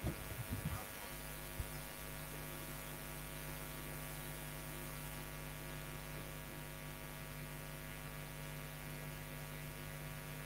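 Faint steady electrical hum with a buzzy edge, a few soft knocks in the first second or so.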